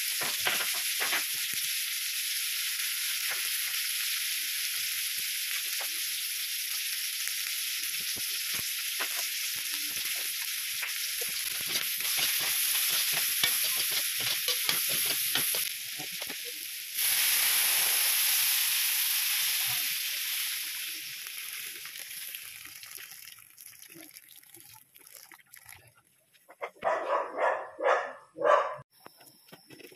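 Meat and vegetables sizzling as they are stir-fried in a wok, with a spatula scraping and clicking against the metal. About 17 s in the hiss jumps louder as broth goes into the hot wok, then dies away over the next few seconds. Near the end there is a short, louder sound of another kind.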